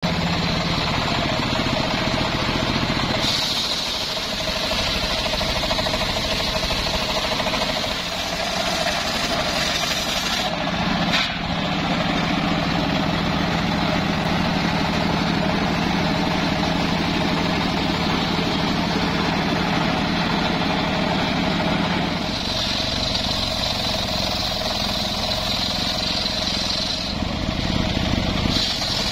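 Engine-driven circular sawmill running continuously while its blade cuts an old johar hardwood log into beams; the running note shifts several times as the cut and load change.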